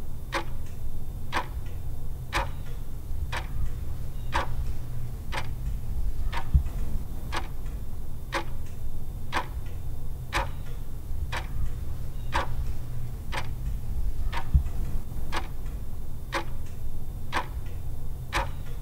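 A clock ticking steadily, about two ticks a second with every other tick stronger, over a low steady hum.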